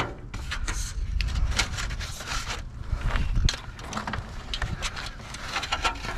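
Scrap being rummaged through in a dumpster: irregular clatters, knocks and scrapes of pieces being shifted and pulled out, over a low rumble.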